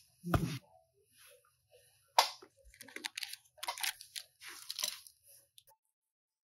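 Cardboard product boxes and plastic packaging being handled on a shop shelf. There is a sharp knock just after the start and another about two seconds in, then crinkling and rustling for a few seconds.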